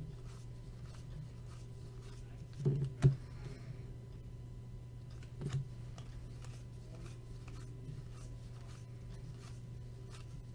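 Trading cards being handled and slid against one another, with a soft knock and a sharp click about three seconds in and another knock about five and a half seconds in, over a steady low hum.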